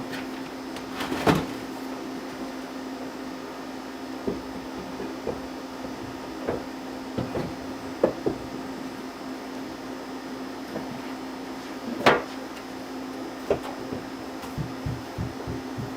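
Scattered knocks and clunks of objects being handled and set down, the loudest about twelve seconds in, with a cluster of lighter taps near the end, over a steady low hum.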